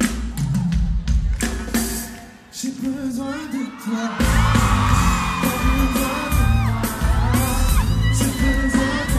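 Live pop music from a band and singer in a large concert hall, heard from the audience. The bass and drums drop out for a moment about two seconds in, and the full band comes back in about four seconds in under long held sung notes.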